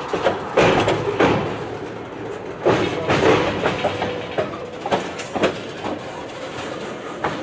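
Slow-rolling freight tank cars, their steel wheels clanking and knocking unevenly over rail joints and switchwork, over a continuous rumble.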